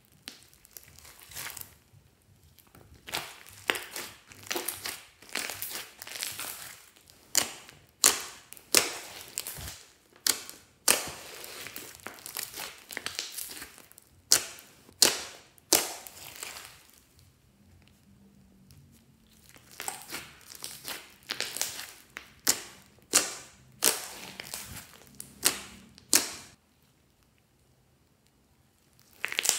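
Glossy slime with small foam beads being pressed and squeezed by hand, giving repeated sticky crackles and sharp pops in clusters. There is a pause about two-thirds of the way through, and it goes quiet near the end.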